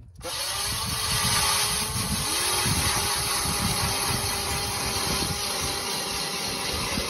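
Battery-powered electric ice auger running steadily, its spiral bit boring down into lake ice: a steady motor whine over the rough grinding of the bit cutting the ice.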